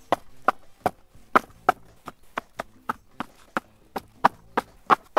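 Rapid light knocks of firecracker bundles being set down on a cardboard sheet, about three a second in a fairly even run.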